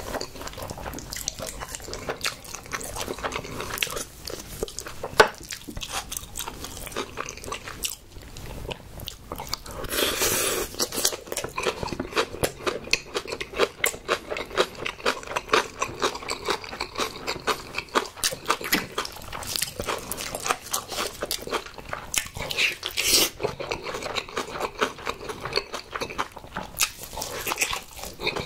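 A person chewing and biting food right at the microphone, a dense run of small mouth clicks, louder about ten seconds in.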